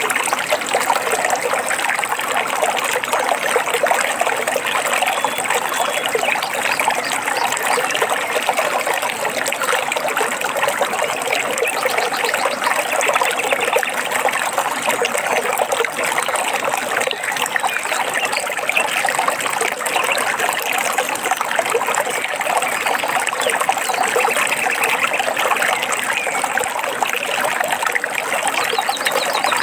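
Running water of a small stream trickling steadily, an even rushing babble with no breaks.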